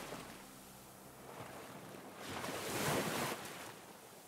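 Ocean surf: a wave washes in, swelling to its loudest about two to three seconds in and then fading.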